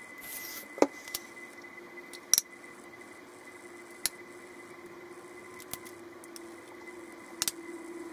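About half a dozen sharp clicks and taps of small makeup items being handled and set down, some coming in quick pairs, over a faint steady hum. The loudest taps come about a second in and just after two seconds in.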